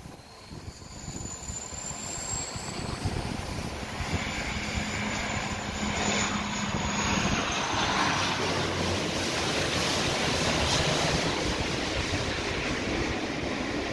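Jet aircraft flying over: a rushing noise that builds over the first several seconds and then holds, with a faint high whine that slowly slides in pitch.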